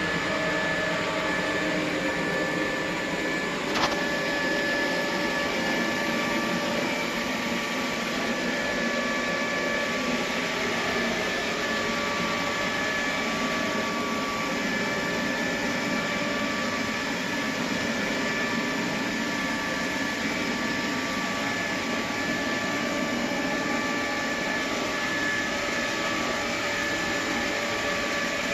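iClebo O5 robot vacuum running steadily, its suction fan and brush motors giving an even whir with a steady high whine. A single sharp knock sounds about four seconds in.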